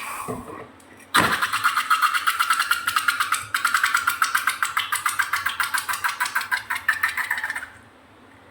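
Air rushing out of a balloon's stretched neck, making a fast buzzing flutter of about a dozen pulses a second for roughly six seconds, with a brief break partway through.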